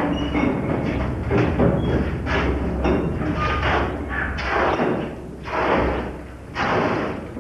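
A run of irregular thumps and knocks, roughly one or two a second, over a low steady hum.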